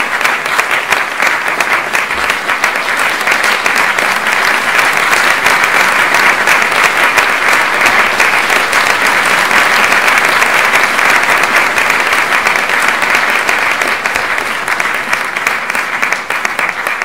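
Theatre audience applauding steadily: a dense patter of many hands clapping, easing slightly near the end.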